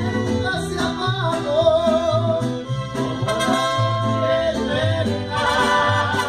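Mariachi band playing and singing: a voice carries a long, wavering held note with vibrato over strummed strings and a steady, repeating plucked bass. Brighter, denser instrument tones come in near the end.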